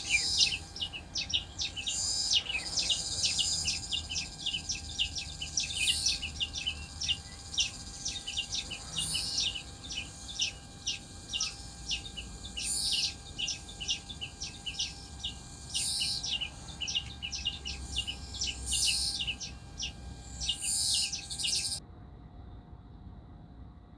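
Songbirds chirping and singing in a dense, rapid chorus of short high notes. Near the end the birdsong cuts off suddenly, leaving only a faint steady background.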